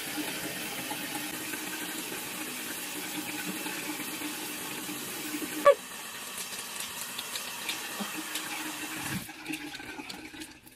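Shower spray running steadily, falling away near the end. About halfway through, one brief loud squeak drops in pitch.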